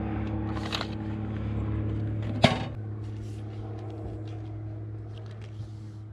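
Steady low hum of an idling vehicle engine, fading slightly, with one sharp clack about two and a half seconds in. Faint scratches of a pen writing on a paper envelope follow.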